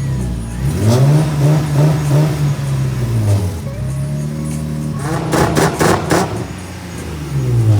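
Nissan 350Z's tuned 3.5-litre V6 revved twice, climbing and holding high revs for a couple of seconds each time before dropping back. During the second rev a quick run of sharp cracks, like exhaust pops from the flame map, cuts through.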